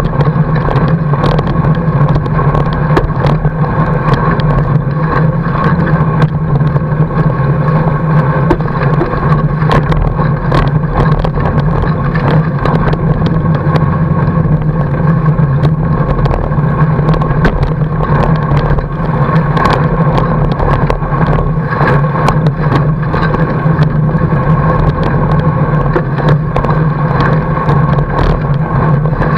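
Fat-bike tyre rolling over packed snow, a loud steady hum with frequent clicks and rattles from the bike, picked up by a camera mounted on the fork.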